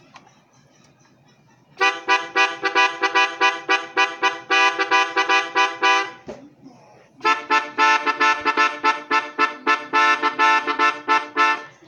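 Glarry melodica, a small plastic keyboard free-reed instrument, blown and played in two quick passages of short separate notes, about four notes a second, with a brief pause between them.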